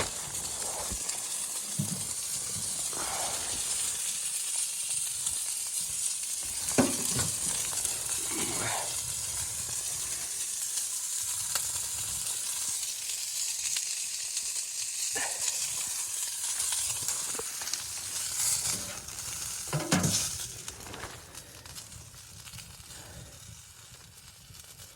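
Food sizzling in a pan on a wood stove, a steady hiss broken by a few short scrapes and knocks of a utensil stirring; the sizzle gets quieter near the end.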